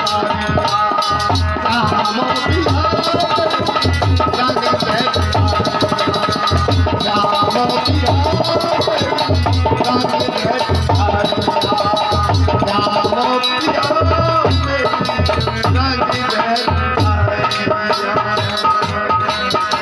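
Bhajan accompaniment: a hand drum beating a steady, even rhythm under a sustained melodic line.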